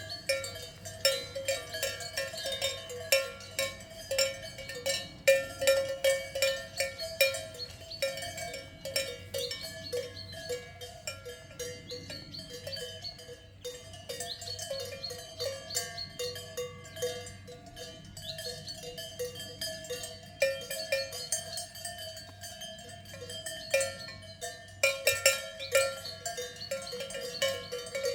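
Swiss cowbells on a herd of cows, many bells clanking and ringing irregularly at once. The clanging thins out in the middle and grows busier again near the end.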